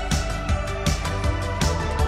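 Background music with a steady beat, a little under three beats a second, over held instrumental tones.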